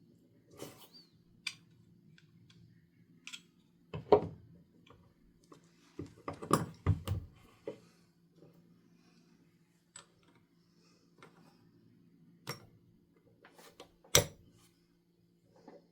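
Small metal engine parts and tools being handled on a workbench: scattered clicks and knocks, the loudest clusters about 4 s, 6.5–7 s and 14 s in, over a faint steady hum.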